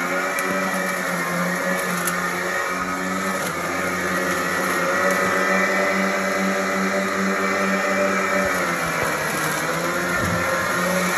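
Craftsman 40V cordless electric lawn mower running under load in tall weeds, its motor and spinning blade giving a steady whine. Near the end the pitch sags for about a second, then comes back up.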